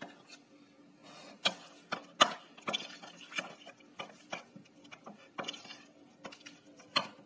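Metal spoon stirring mango pulp into thick hung curd in a glass bowl, clinking and scraping against the glass in irregular clicks, about two a second.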